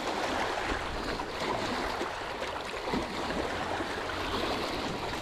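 Small waves lapping and splashing against shoreline rocks, a steady wash of water.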